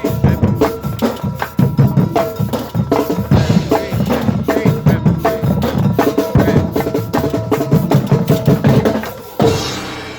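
Marching band percussion playing a fast, dense rhythm of drum hits with low bass-drum strokes and a few pitched mallet notes over the top. Near the end a single loud accented hit rings out and fades away.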